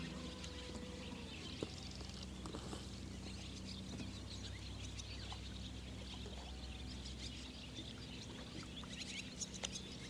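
Birds chirping and calling: many short, scattered chirps over a faint low steady hum, with a few soft clicks.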